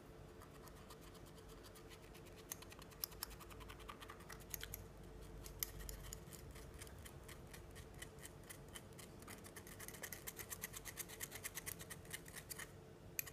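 Faint, rapid scratching and ticking of a spoon scraping matcha powder through a small metal mesh tea strainer, breaking up lumps as it sifts. The scraping comes quicker and closer together in the last few seconds.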